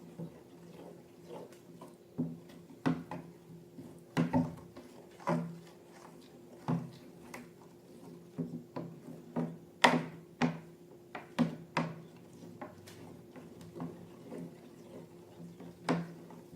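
Slime being handled, giving irregular sticky clicks and pops about once a second over a faint steady hum.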